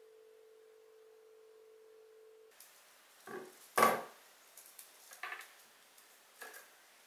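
A steady held tone cuts off about two and a half seconds in. After it come hands shaping stiff wreath wire over a wooden table: a few short rustles and knocks, the loudest about four seconds in.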